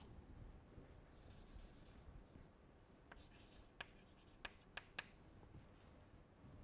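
Chalk writing on a chalkboard, faint: scratchy strokes about a second in and again a little after three seconds, then four short sharp taps of the chalk on the board between about four and five seconds.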